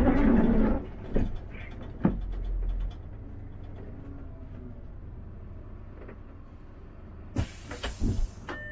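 City bus driving, heard from on board: a steady low rumble of engine and road noise, with a few knocks and rattles in the first three seconds. About seven seconds in comes a loud hiss lasting about a second, and a short high beep sounds right at the end.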